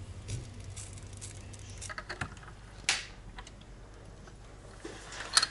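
A metal spoon scraping and tapping as it drops thick batter into the moulds of an electric mini-doughnut maker, with small clicks of handling. There is a sharper click about three seconds in and another near the end.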